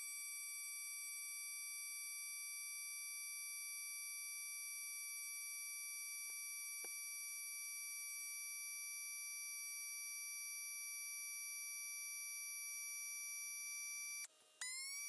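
A faint, steady electronic drone of several held pure tones. It cuts out briefly near the end and comes back with a short upward glide.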